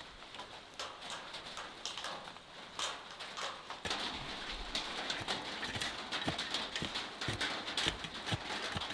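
Rain starting to fall: scattered, irregular drops tapping and ticking on nearby surfaces over a light hiss, the taps coming thicker, with duller low thuds, from about four seconds in.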